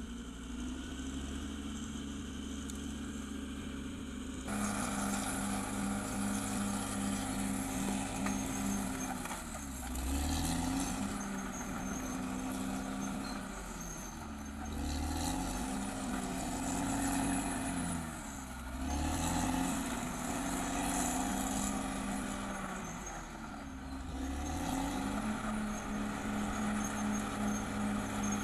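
Caterpillar D6R XL bulldozer's diesel engine working. It gets louder about four seconds in, and its pitch sags and picks up again four times as the load comes on and off.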